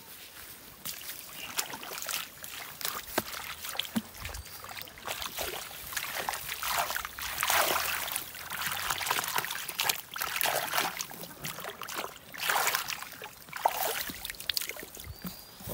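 Hands splashing and rubbing shallow stream water over a watermelon as it is washed: an irregular run of splashes and sloshes that starts about a second in.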